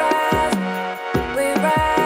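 Background music with a steady beat: held melodic notes over repeated bass drum hits that drop in pitch.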